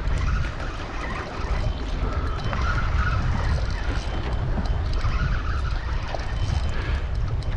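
Wind buffeting the camera microphone in a loud, uneven low rumble, with choppy sea water washing around a kayak.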